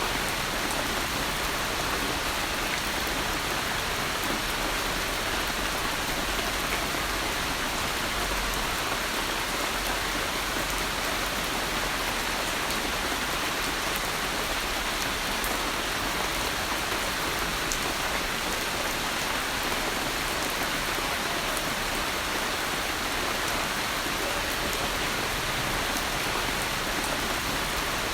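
Steady rain falling and pattering on a surface, an even hiss with scattered fine drop ticks and no thunder.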